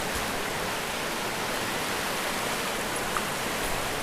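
Steady rushing of a raging river's water.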